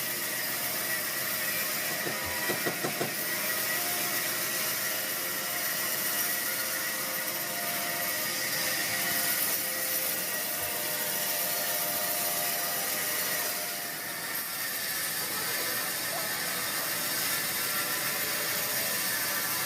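Sawmill machinery running steadily with a constant mechanical hum and hiss. A few short knocks come about two to three seconds in, and the sound eases off briefly about two-thirds of the way through.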